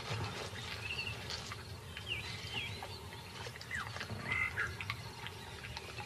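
Wild outdoor ambience: scattered short chirping and croaking calls of small animals, a few each second, some sliding down in pitch, over a low steady background.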